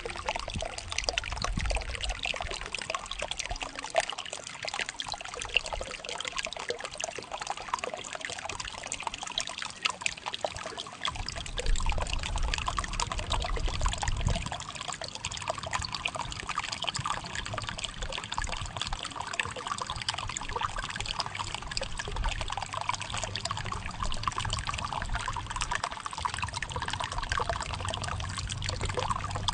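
Water flowing and trickling, with a steady run of small splashes. A low rumble comes and goes beneath it, strongest about halfway through and again near the end.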